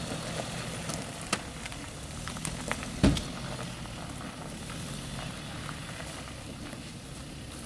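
Ford Transit ambulance's engine running at low speed as the van rolls slowly closer, a steady low hum under a hiss, with a few light clicks and one heavy thump about three seconds in.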